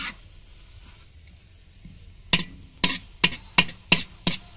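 Food being stirred in a frying pan with a cooking utensil over a faint sizzle: a clack at the start, then from about two seconds in a run of six sharp strikes of the utensil against the pan, about three a second.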